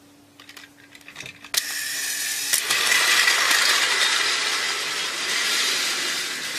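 A few light clicks, then a battery-powered toy train's motor and gearbox start with a sudden whirr about a second and a half in and keep running steadily, getting louder about a second later.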